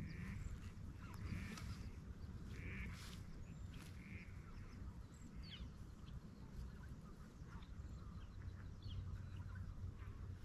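Ducks quacking: a run of quacks about a second apart in the first four seconds, then scattered fainter calls. A steady low rumble runs underneath.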